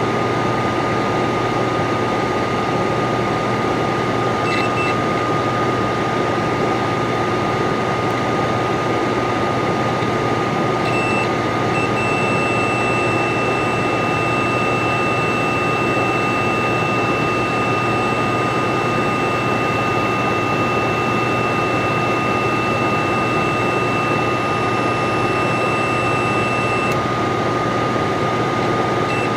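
Steady loud hiss with a constant thin whine underneath. A digital multimeter's continuity beeper chirps briefly about four and a half seconds in and again about eleven seconds in, then sounds one steady beep until a few seconds before the end. The beep signals continuity while the micro pick probes rest on the board's pads.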